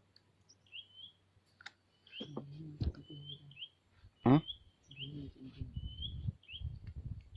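A bird chirping a short, high note over and over, about twice a second, with scattered knocks and rustles of handling in between.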